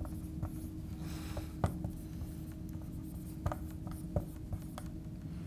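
Dry-erase marker writing on a whiteboard: a scattered series of short scratchy strokes and taps, over a faint steady hum.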